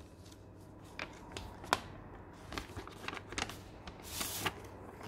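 Paper rustling with light taps and clicks as a printed vellum envelope and stationery cards are handled, with a brief sliding rustle about four seconds in.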